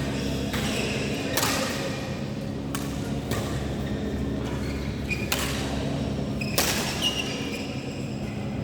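Badminton rally: rackets striking a shuttlecock about six times, sharp hits a second or so apart, over a steady low hum. A few short high squeaks come between the hits.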